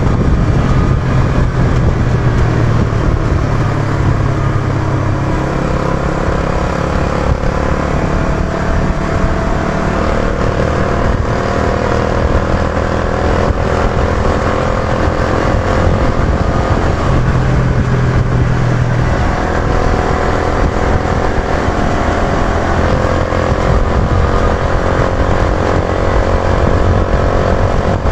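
Yamaha YB125Z DX motorcycle riding along, its 125 cc single-cylinder engine running under way with a dense rush of wind and road noise; the engine note climbs gently a few times.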